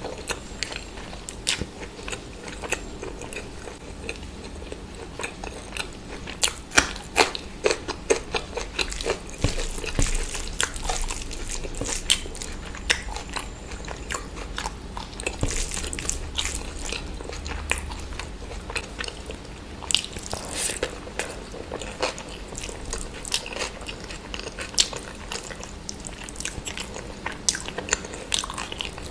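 Close-miked mouth sounds of a person eating chicken and rice: continual wet chewing, biting and lip-smacking, with many short sharp clicks, a cluster of louder ones about a quarter of the way through.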